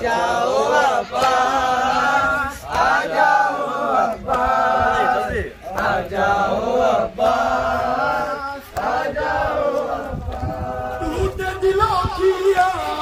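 Men chanting a nauha, a Shia mourning lament, together. The lead voice comes through a handheld megaphone, in sung phrases about a second and a half long with short breaks between them.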